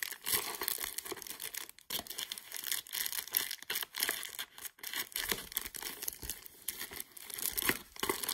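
Clear plastic bags crinkling and rustling as hands handle the bagged Beyblade tops, with a steady run of sharp crackles.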